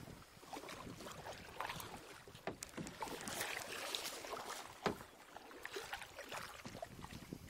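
Kayak paddle strokes: water splashing and dripping off the blades as they dip and lift, with one sharp knock about five seconds in.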